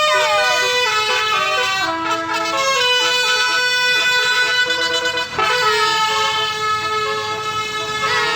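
Bus basuri (telolet) musical horn playing a tune: several horn notes sound together and step from pitch to pitch, with falling slides near the start and about halfway through.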